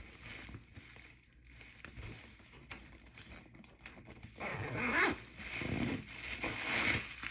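Rustling and handling noise from a straw backpack being turned over and shown, with faint clicks at first and louder rustling in the last few seconds.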